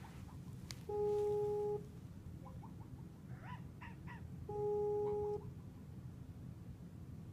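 Video-call ringing tone from a laptop's speakers: a steady beep just under a second long that sounds twice, about three and a half seconds apart, as the call rings unanswered.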